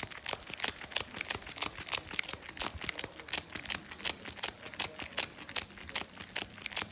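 A wrapped Airheads taffy bar being smacked rapidly back and forth against a palm, several strokes a second, the plastic wrapper crinkling with each slap.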